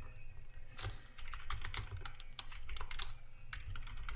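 Typing on a computer keyboard: an uneven run of quick key clicks.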